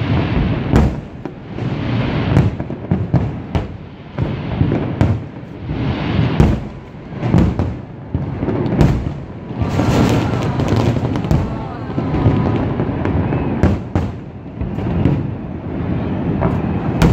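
Fireworks display: many aerial shell bursts in quick succession, sharp bangs over a steady crackle.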